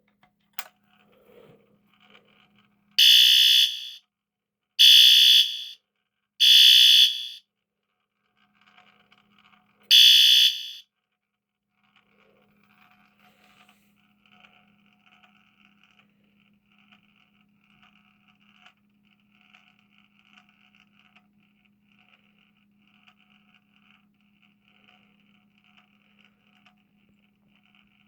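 First-generation System Sensor SpectrAlert Advance HRK horn sounding one round of code from a coded pull station: three blasts of about a second each in quick succession, a pause, then a fourth. A faint steady hum and light crackle run underneath and on after the code ends.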